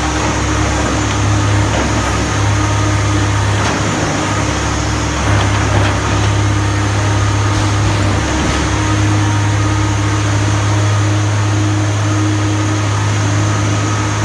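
Komatsu PC300LC excavator's diesel engine running steadily, a low drone with a steady higher tone over it; a few faint knocks come around the middle.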